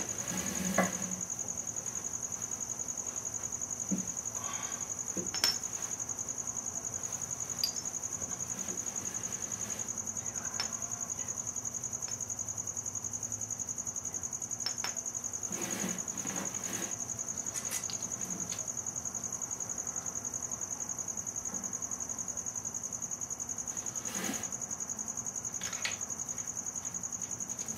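A steady high-pitched whine with a fine, even pulse runs under everything. A few light clicks and clinks come from the crankshaft main-cap bolts and tools being handled.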